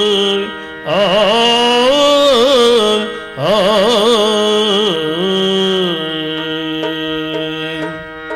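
Yakshagana singer's voice in a long ornamented sung phrase, its pitch sliding and wavering, over a steady drone. The voice breaks off briefly twice, then settles on a long held note that fades near the end.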